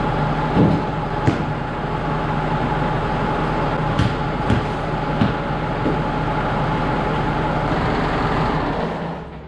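New Holland TS6.130 tractor's diesel engine idling steadily with a constant whine, warming up before an oil change; a few light knocks in the first few seconds, and the engine sound drops away near the end.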